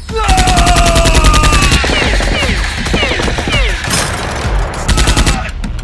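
Rapid automatic gunfire sound effects in two bursts, the longer one first and a short one near the end, with falling whistle-like tones between them.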